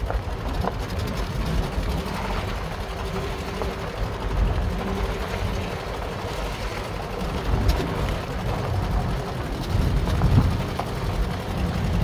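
A 1986 Subaru Brat's flat-four engine running steadily as the truck drives along a gravel road, with a low rumble and tyre and road noise. Small scattered ticks of gravel come through all the while.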